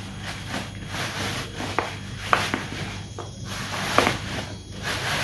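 Thin plastic shopping bags rustling and crinkling as they are folded and stuffed into a plastic bottle, with a few sharper crackles, the loudest about four seconds in.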